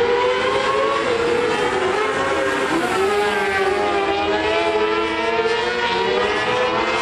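Several micro sprint cars' motorcycle-derived engines running at once, their overlapping notes rising and falling in pitch as the cars circulate the dirt oval.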